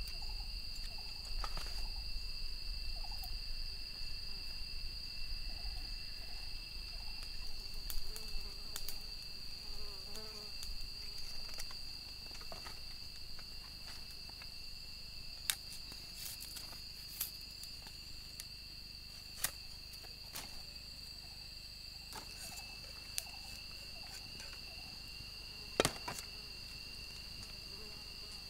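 Steady high-pitched drone of insects at two constant pitches, with scattered sharp clicks and light cuts as a knife works a thin bamboo stick.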